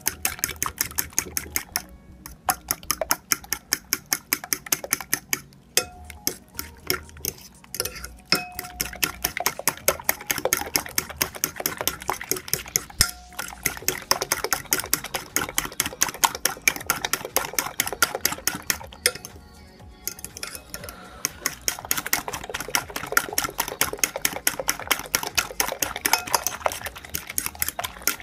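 A metal fork beating eggs in a glass baking dish, its tines clicking rapidly against the glass. The clicking stops briefly a few times, longest about two-thirds of the way through.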